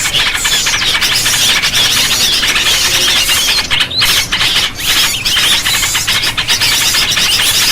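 A dense chorus of many small birds chirping and twittering at once, a busy high-pitched chatter with no pause, played as a lure call to draw small birds in.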